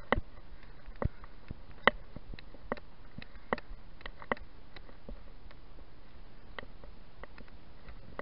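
Mountain bike coasting downhill on tarmac: steady tyre and air noise with a dozen or so irregular sharp knocks and rattles from the bike as it hits bumps, most of them in the first few seconds.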